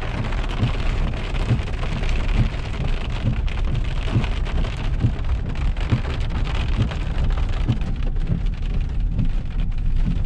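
Rain falling on a truck's windshield and roof, heard from inside the cab as the truck drives slowly over a rough dirt road, with a steady low rumble and irregular low bumps.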